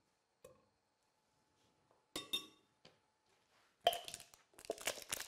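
Light clinks and rattles of cookware and jars being handled at a stove: a single clink with a brief ring about two seconds in, then a quick run of small clicks and knocks near the end.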